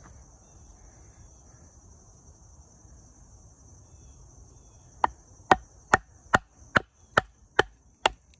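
Baton striking the spine of an LT Wright Forest Trail knife to split a log into quarters. About five seconds in, a quick, even run of sharp knocks begins, a little over two a second.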